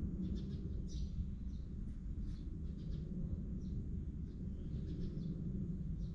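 Small birds chirping on and off over a steady low rumble of outdoor background noise.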